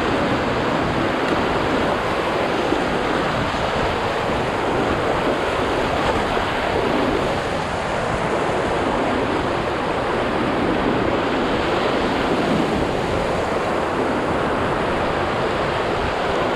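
Steady rush of river whitewater, with no break or change in level.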